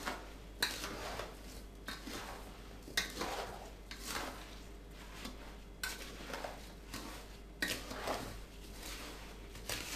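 Strawberries and sugar being stirred in a large enamel basin with a wooden spoon: gritty scraping and rustling of sugar-coated berries, with a sharp knock of the spoon against the bowl about every two seconds.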